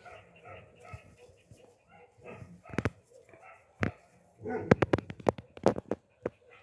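An old dog with its muzzle tied shut with gauze gives short repeated whimpering cries while its tumour-swollen throat is handled. In the second half there are sharp clicks and knocks, loudest in a quick cluster about two-thirds of the way through.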